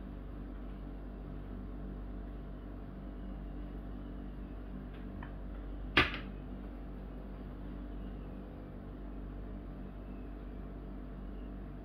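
A small drinking glass set down on a plastic tray: one sharp knock about halfway through, with a fainter tap just before it, over a steady low hum.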